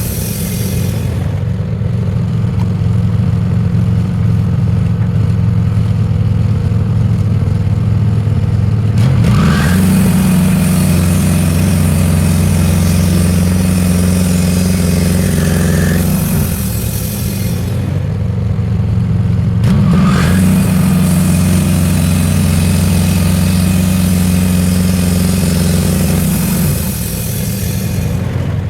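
Band sawmill running: the engine drones steadily while the blade cuts lengthwise through ash, adding a high hiss. The hiss breaks off and resumes between two long passes.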